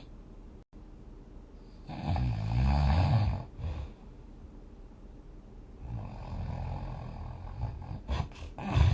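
A sleeping person snoring. A loud, low, buzzing snore comes about two seconds in, and a longer, quieter snore follows from about six seconds. A few short clicks come just after eight seconds, and the next loud snore starts right at the end.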